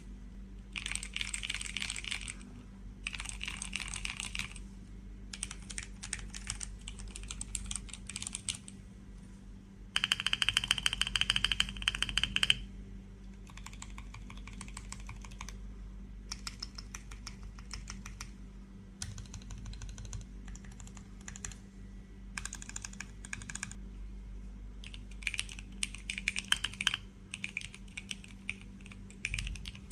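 JamesDonkey RS2 gasket-mounted mechanical keyboard with Gateron G Pro Brown tactile switches and PBT keycaps being typed on. The key clicks come in rapid runs a few seconds long with short pauses between them, and the loudest run comes about ten seconds in.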